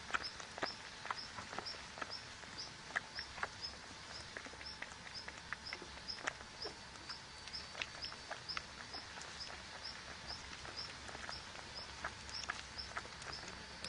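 An animal's short high call, repeated evenly about twice a second, with irregular clicks and ticks throughout.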